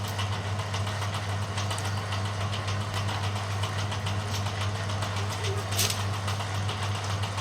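Bamboo strip thinning machine running steadily: a constant low hum from its drive, with a fast, light clicking and rattle over it, as of bamboo being fed through. A brief sharper hiss about six seconds in.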